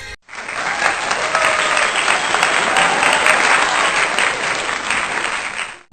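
Audience applauding steadily, starting and cutting off abruptly.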